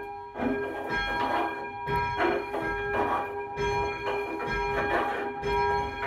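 Church bell being rung up by hand on its rope: the second bell of a change-ringing ring, its clapper striking about once a second as the swing builds, each stroke ringing on into the next.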